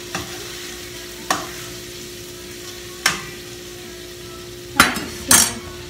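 Seasoned meat frying gently in a pan on medium-low heat, with a utensil scraping and stirring it about five times, the loudest two strokes near the end.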